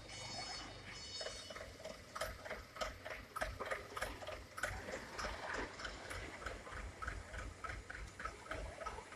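100 kW Steyr gas generator set running, with a rhythmic ticking clatter of about three ticks a second.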